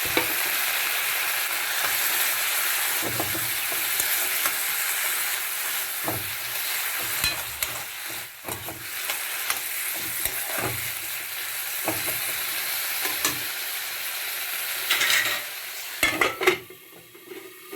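Bamboo shoot, onion and spice paste sizzling as they fry in a pan, stirred with a spatula that scrapes the pan every second or two. Near the end there are a few louder clatters, and then the sizzle falls away.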